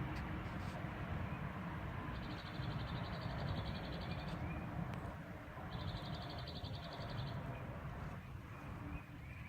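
Outdoor ambience dominated by a low, rumbling noise like wind on the microphone, with two high, rapid trilled calls, each lasting one to two seconds, about two seconds in and again about six seconds in.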